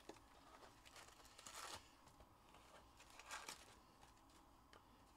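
Faint handling noise of a cardboard trading-card box being opened by hand: a light click, then two brief rustling swishes, about a second and a half in and again past three seconds.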